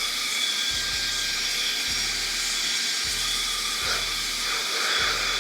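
Saker 3-in-1 cordless mini vacuum running steadily over a laptop keyboard with its keyboard attachment: a high motor whine over a rushing hiss of air.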